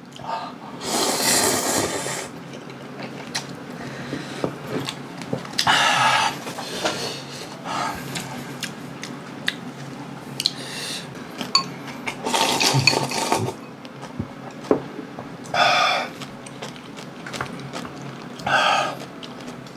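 Instant ramyun noodles slurped in about five loud, noisy bursts, with wet chewing and lip-smacking in between.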